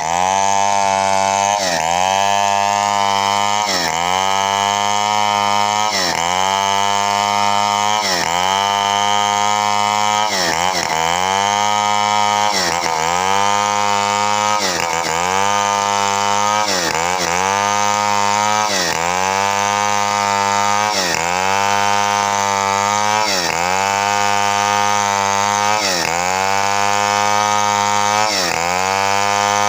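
Chainsaw running at high revs while ripping a coconut palm trunk lengthwise. Its pitch dips briefly and recovers about every two seconds as the chain takes load in the cut.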